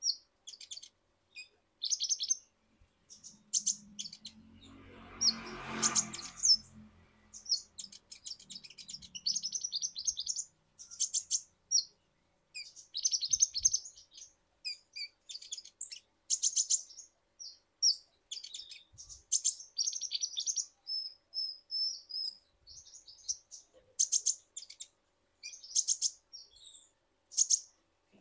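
Male Van Hasselt's sunbird (kolibri ninja) singing: rapid bursts of high, thin chirps and twittering trills, one after another with short gaps. A brief low rumbling noise swells and fades about five seconds in.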